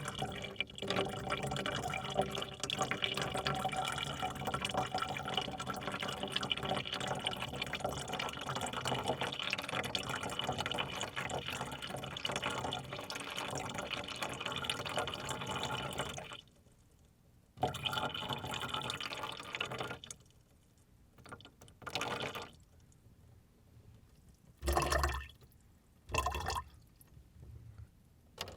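Water poured into a container in one long steady stream for about sixteen seconds. After a short pause comes a second, briefer pour, then four short separate splashes of pouring.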